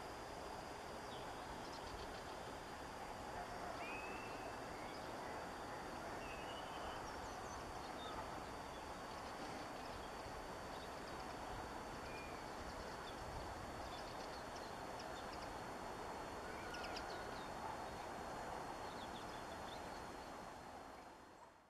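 Steady outdoor background noise with a faint, steady high whine, and scattered short bird chirps and twitters. It fades out near the end.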